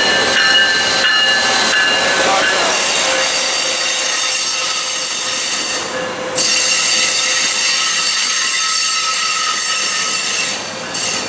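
MARC commuter train of bilevel passenger cars rolling past, a steady rumble with the wheels squealing on the rail in several high held tones.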